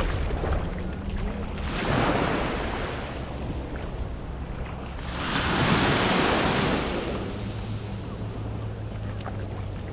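Small waves washing up onto a sandy beach, swelling twice, the louder wash about halfway through.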